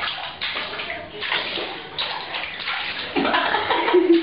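Water splashing and sloshing in a bathtub in irregular bursts as a small child plays in it.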